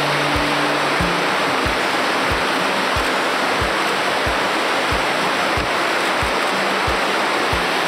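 River water rushing over rocks and a small waterfall, a steady even hiss, under background music with a low, steady beat about one and a half times a second.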